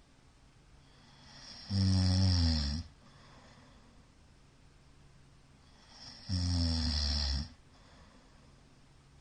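A middle-aged man snoring loudly in his sleep: two low, pitched snores about a second long each, the first about two seconds in and the second about four seconds later, each led in by a faint breath.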